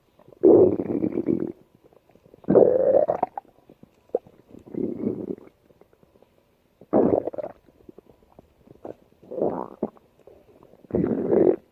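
Stomach growling: about six separate gurgles, each lasting half a second to a second, with a couple of short pops and quiet gaps between them.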